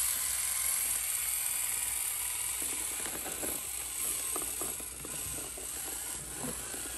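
Basher Rocksta 1/24-scale mini rock crawler's small electric motor and gears giving a steady high-pitched whine as it crawls, with light scattered clicks and scrapes from its tires and chassis on the rock terrain.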